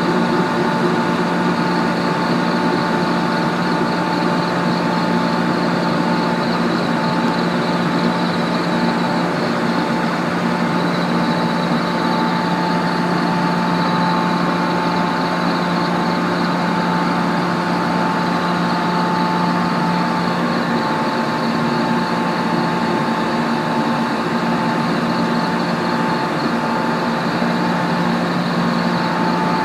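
JR Kyushu 415 series electric trains standing powered up, their onboard auxiliary equipment giving a steady hum with several held tones.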